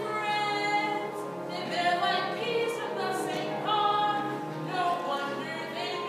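A young solo singer singing a musical-theatre song over instrumental accompaniment, the melody moving through several held notes.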